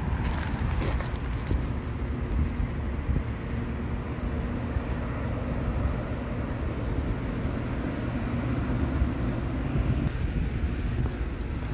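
Steady road traffic: cars and a bus driving past, a continuous low rumble.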